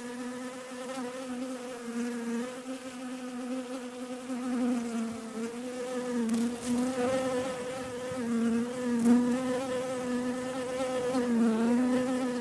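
A bee buzzing in a steady hum, its pitch wavering and dipping briefly a few times.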